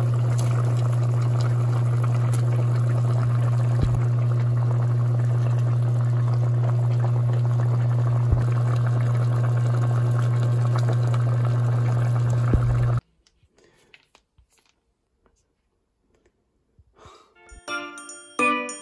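A pot of spicy braised chicken stew simmering and bubbling over a steady low hum, with a few sharp pops. The sound cuts off about two-thirds of the way through, and near the end a chiming, bell-like tune starts.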